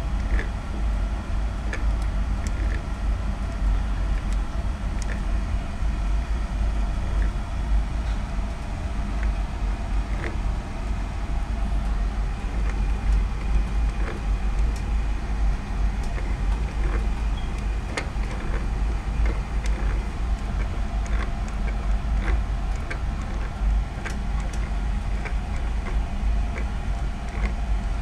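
Singer 111W153 walking-foot sewing machine's electric motor running with a steady hum, with irregular light clicks from the machine's mechanism.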